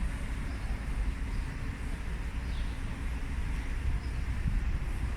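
Steady outdoor background noise with a constant low rumble and an even hiss, with no distinct events.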